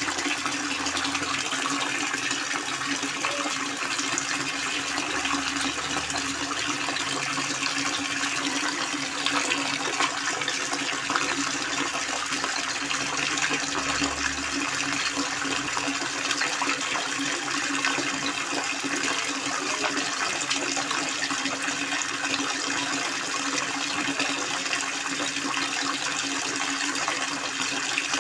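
Water pouring steadily from a pancuran spout and splashing down in a continuous rush.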